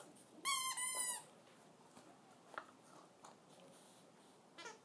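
Plush squeaky toy squeaking as a dog chews it: a loud, long squeak about half a second in, a few faint squeaks after, and another squeak starting near the end.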